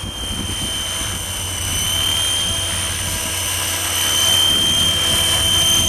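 Radio-controlled model helicopter hovering low and coming in close: a steady high-pitched whine over rotor noise, growing louder as it nears.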